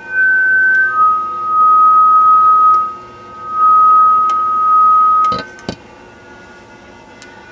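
A single sustained pure tone, like a theremin or sine-wave synth, that steps slightly down in pitch about a second in and swells and fades in loudness. It cuts off a little after five seconds with a few sharp clicks.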